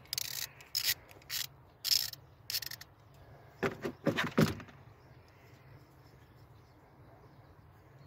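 Ratchet wrench with a Torx T30 bit undoing the camshaft position sensor's bolt: about six short rasping ratchet strokes in the first three seconds, then a few louder clattering knocks about four seconds in.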